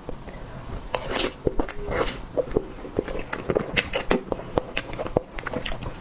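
Close-miked eating sounds: a quick, irregular run of clicks and taps with a few short scraping sounds.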